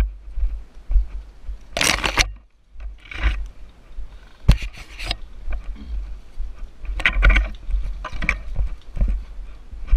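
Scraping and rustling in separate bursts, a few seconds apart, over an uneven low rumble on the microphone.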